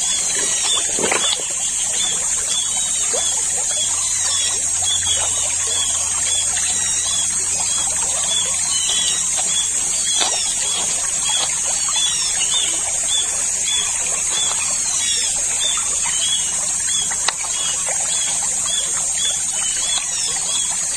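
Shallow stream trickling over rocks, under a steady high-pitched drone and a short animal chirp repeating about twice a second, the chirps dying out near the end.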